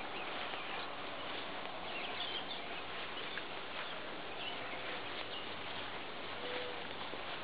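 Steady outdoor background noise, an even hiss, with a few faint scattered ticks and short chirps.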